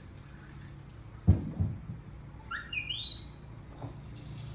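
A young pet monkey gives a high squeal that rises in pitch and holds briefly, about halfway through. A couple of dull thumps come just before it, about a second in, and they are the loudest sound.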